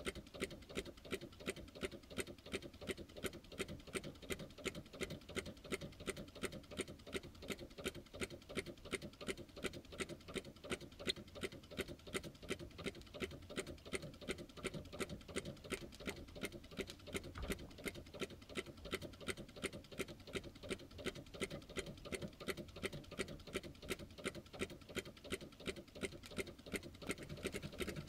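Small beer-can Stirling hot-air engine running steadily, ticking evenly several times a second as its flywheel turns.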